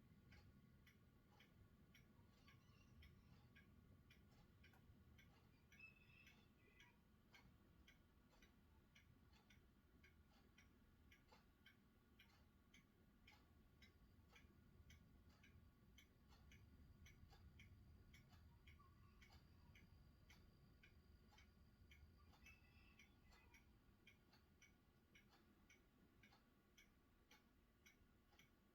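Near silence: faint rapid ticking several times a second over a faint low rumble.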